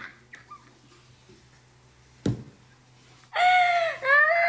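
A short quiet pause broken by one sharp knock, then a young woman's loud, high-pitched wordless vocalising, a squeal or sung sound rather than words, for the last second or so.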